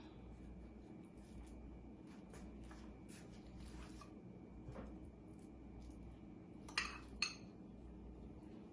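Faint clinks and light taps of a spoon against a bowl while spooning corned beef filling onto pie dough, with two sharper clinks close together about seven seconds in.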